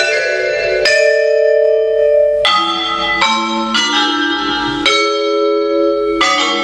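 Vibraphone played with mallets: chords of several notes struck about seven times, each left ringing until the next set of metal bars is struck.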